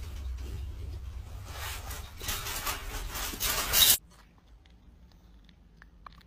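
Loud rustling noise over a steady low rumble of wind on the microphone, swelling just before it cuts off sharply about four seconds in. After that comes a quiet room with a few faint ticks.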